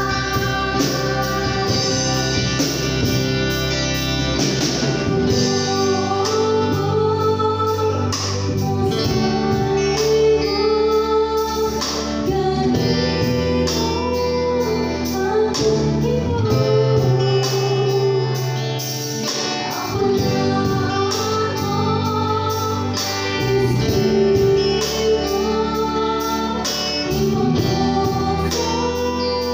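Live band playing a song: a woman sings lead over keyboard, drum kit, electric guitar and bass guitar, with a steady drum beat.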